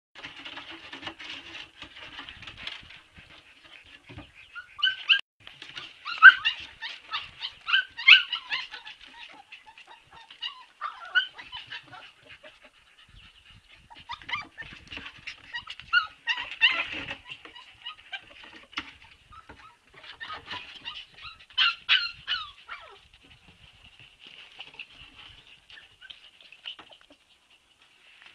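Siberian husky puppies whimpering and squealing in a near-continuous run of short, high-pitched cries, with louder clusters several times.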